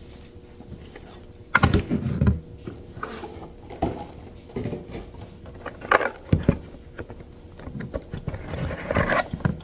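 Cardboard box and its packaged contents being handled and unpacked: irregular rustles and light knocks of card and plastic, with a cluster of louder handling sounds a couple of seconds in and more near the end.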